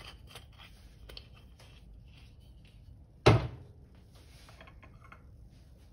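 A single sharp knock about three seconds in, with a few faint clicks of kitchen handling around it.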